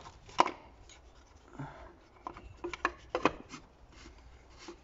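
Oil filter cartridge and housing cap being fitted into the filter housing by gloved hands: scattered small clicks and rubbing, with a few sharper clicks.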